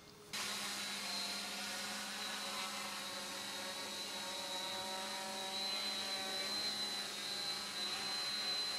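Hexacopter drone's electric motors and propellers whining steadily as it flies low, with a high, slightly wavering tone over the propeller hum. The sound cuts in suddenly just after the start.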